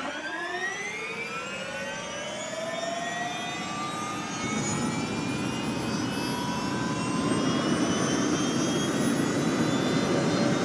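Helicopter turbine engine spooling up: a whine of several tones rises steeply, then climbs slowly and holds high. A rushing noise grows louder under it about four and a half seconds in.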